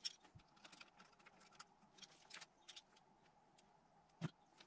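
Faint, scattered light clicks and ticks of small metal parts being handled at the turbo's wastegate lever, with a sharper click right at the start and another near the end.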